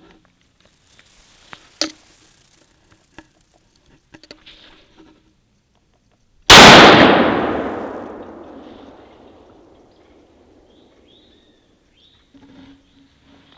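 A single gunshot from a deer hunting gun about six and a half seconds in, its report echoing away through the woods for about three seconds. A small sharp click comes a couple of seconds in.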